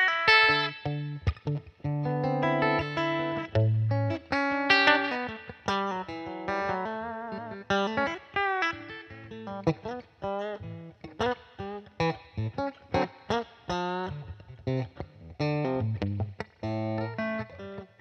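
Unaccompanied blues on a Fender Telecaster electric guitar: phrases of picked single notes with bent, wavering high notes over low bass notes, broken by short pauses between phrases.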